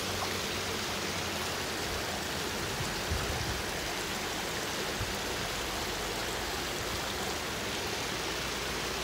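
Steady rushing of a shallow, rain-swollen stream running over pebbles, with a soft low thump about three seconds in.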